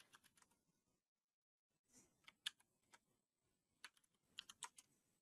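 Faint computer keyboard typing: a few scattered keystrokes in short groups.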